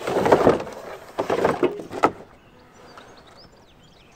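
Cardboard scraping and rustling as a solar panel is slid out of its cardboard shipping box, with a sharp knock about two seconds in. The sound dies down for the last two seconds.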